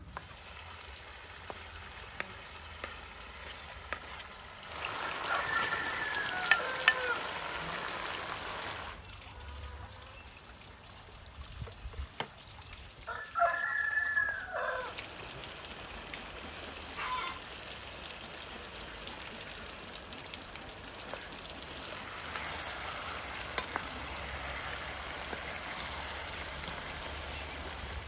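A rooster crows twice, about five and thirteen seconds in, over meat and fruit sizzling in a frying pan being stirred with a wooden spatula; the sizzle starts about five seconds in and grows louder about nine seconds in.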